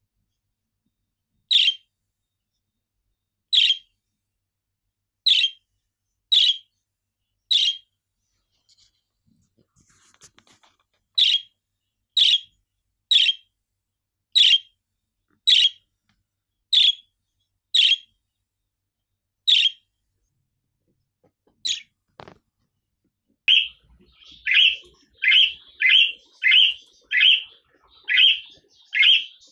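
Budgerigar giving short, sharp single chirps, one every second or two. After a short pause the chirps come faster, nearly two a second.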